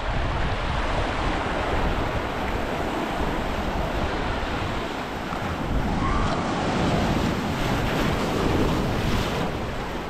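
Sea surf washing onto the beach, a steady rush of breaking waves, with wind buffeting the microphone.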